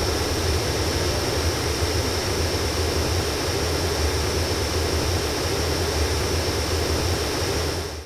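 Steady radio static: an even hiss over a low hum, dying away at the very end.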